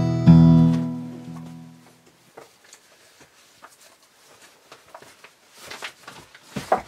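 Acoustic guitar chord strummed once and left to ring out, fading away over about two seconds; then faint small clicks and rustles, with a sharper knock near the end.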